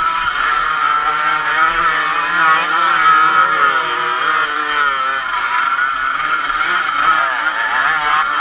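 Motocross bike engine running hard, its pitch rising and falling over and over as the throttle is worked, with other motocross bikes' engines running close alongside.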